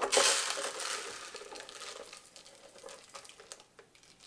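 Bird seed being poured into a feeder container: a loud rush of falling seed at first that thins out over about three seconds into scattered pattering ticks.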